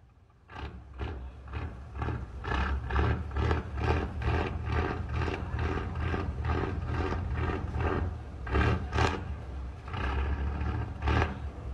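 Nissan V10 diesel engine of a fishing boat coming in about half a second in and running with a loud, rhythmic exhaust beat, about two to three pulses a second, over a deep steady rumble.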